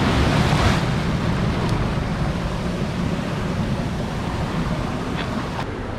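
Ocean swell surging up onto a rock ledge and crashing against the cliff face, loudest near the start, then foaming white water rushing over and running off the rock as it slowly dies down.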